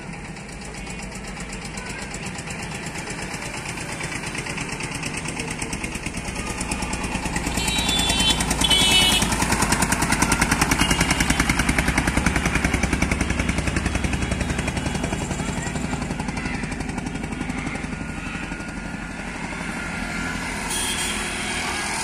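A motor vehicle's engine running as it passes close by, growing louder to a peak around the middle and then fading.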